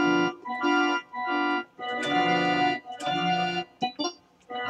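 Casio electronic keyboard set to an organ voice, playing a series of held chords, each about half a second to a second long with short breaks between.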